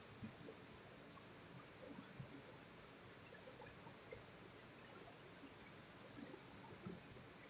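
Near silence: faint background hiss with a thin, steady high-pitched tone.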